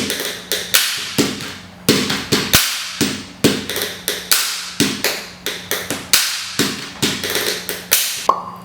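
A percussion beat built from sampled everyday-object sounds: sharp taps and knocks repeating in an even rhythm, about two or three a second, with a low steady tone under some stretches.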